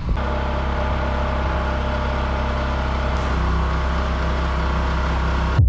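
Pressure-washing rig's small engine running steadily under a hiss of spraying water during soft-washing of a roof; it cuts off suddenly near the end.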